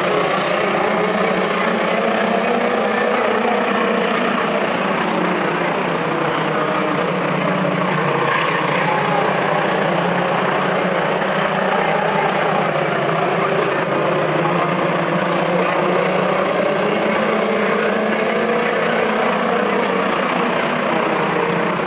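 A pack of short-track race trucks running at speed around an oval: a loud, steady drone of many engines, with their pitches wavering up and down as the trucks pass and change speed.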